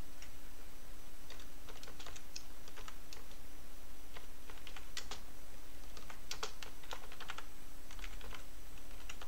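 Typing on a computer keyboard: irregular keystroke clicks over a steady low hum.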